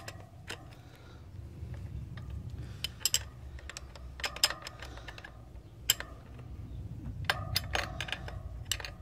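Open-ended steel spanner clicking and clinking against a hub motor's axle nut and torque arm as the nut is tightened. The clicks are irregular and sharp with a short metallic ring, several bunched together near the end.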